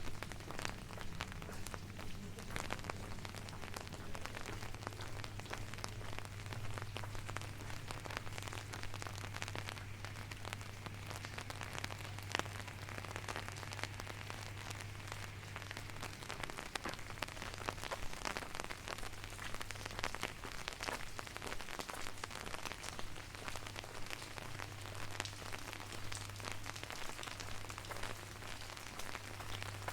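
Rain falling steadily, with a dense patter of drops on hard surfaces and a steady low hum underneath.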